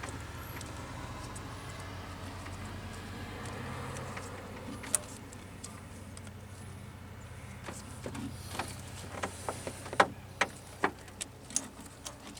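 Scattered sharp clicks and taps of a fuel line and its fittings being handled and fitted into place, over a steady low hum. One click comes about five seconds in, and a quicker run of them follows near the end.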